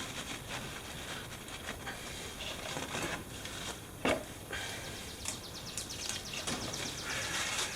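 Tools and parts being handled: scattered clicks and knocks, one louder knock about four seconds in, and a quick run of rapid ticks a little after five seconds.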